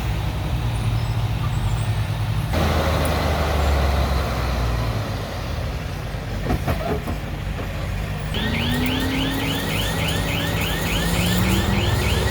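Heavy diesel engines of earthmoving machinery running, with an abrupt change in the engine sound about two and a half seconds in. Near the end one engine rises in pitch, and a fast, even series of short high chirps starts, about three to four a second.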